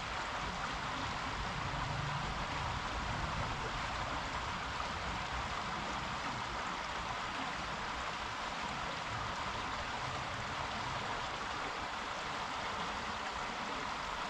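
Creek water rushing steadily, the flow up after recent rain; an even, unbroken noise with no splashes or knocks standing out.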